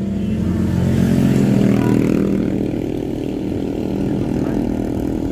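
Engine and road noise heard from inside a moving car. A motor scooter passes close by in the first two seconds, and its engine is the loudest part before it fades away.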